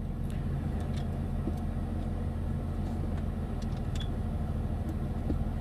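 A steady, low machine hum that runs throughout, with a few faint clicks and taps of plastic fan parts being fitted together.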